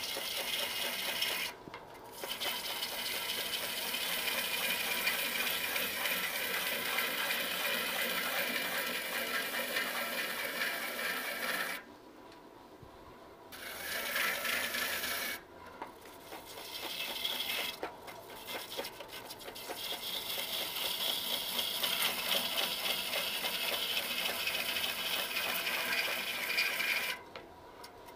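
Gouge cutting the outside of a large wooden vessel spinning on a lathe: a steady, rough shearing of wood shavings. It breaks off briefly several times as the tool comes off the wood, the longest break about twelve seconds in.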